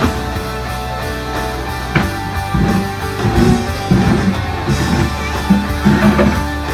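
Rock music with guitar and a drum beat.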